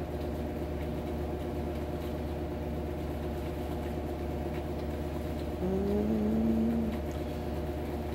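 Steady machine hum made of several steady tones, like a room's air conditioning or an appliance running. About five and a half seconds in, a man's voice gives a brief 'mm' that rises slightly in pitch.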